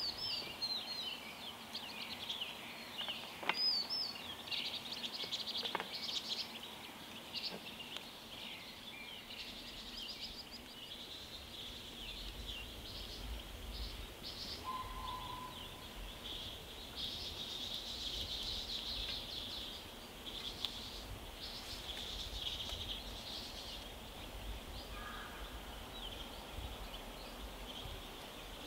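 Small birds chirping and calling almost without pause over a soft outdoor background. A couple of light knocks come a few seconds in, from the cookware being handled.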